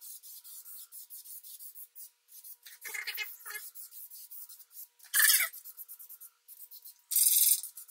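Aerosol can of gloss black spray paint hissing in short bursts, the loudest burst near the end, with light clicks between bursts.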